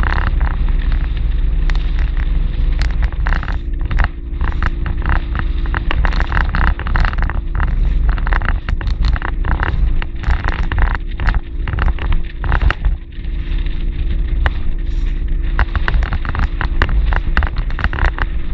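Small motorboat under way: the engine drones steadily while the hull slaps and crackles through choppy water, with many irregular sharp hits of spray and chop.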